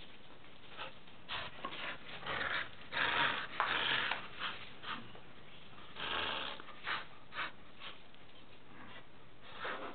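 Small dog tugging on a knotted rope toy, making irregular breathy bursts of sound, loudest about three to four and a half seconds in and again just after six seconds.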